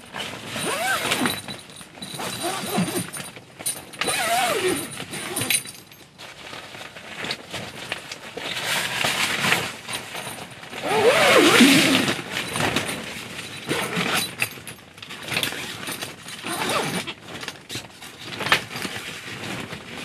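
Boat tent fabric rustling and rasping in repeated bursts as the bow hatch cover is pulled across and closed, loudest about two thirds of the way through, with a sharp knock near the end.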